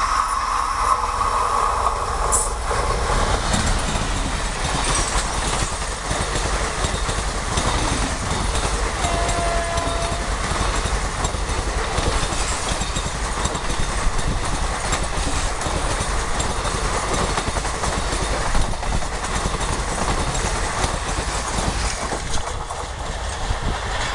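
Express passenger train hauled by a WAP-4 electric locomotive passing at speed close by: continuous rumble and clatter of coach wheels on the rails. The locomotive's horn sounds at the start and fades out two or three seconds in. The noise drops a little near the end as the last coach moves away.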